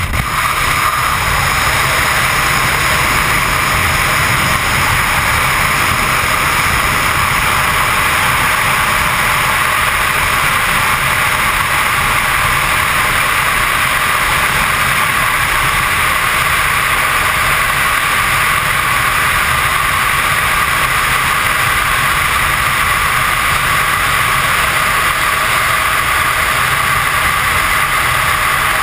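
Loud, steady wind rush over a helmet-mounted camera's microphone during skydiving freefall.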